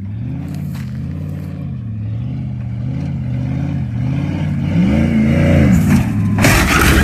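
Pickup truck's engine revving hard as it speeds down a dirt track, its pitch rising and falling several times and climbing highest shortly before the jump. Near the end a loud burst of noise breaks in as the truck comes down from the jump.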